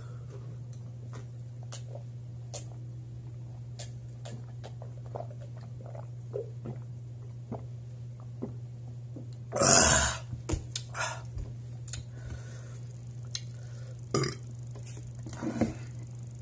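A man chugging a pint of beer, with faint swallowing gulps, then a loud burp a little under ten seconds in, followed by a few smaller breaths and mouth sounds. A steady low hum runs underneath.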